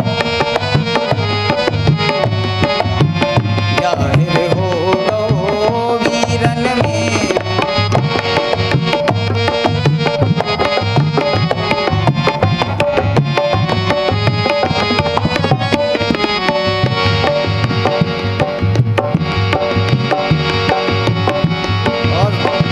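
Tabla playing a fast, steady rhythmic accompaniment, with deep bass-drum strokes under held melody notes from accompanying instruments: an instrumental passage of a Bundeli folk song.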